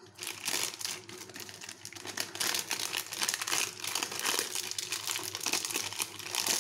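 Foil-lined paper wrapper of a block of white compound chocolate crinkling as it is pulled open by hand, a continuous crackle that gets louder about two seconds in.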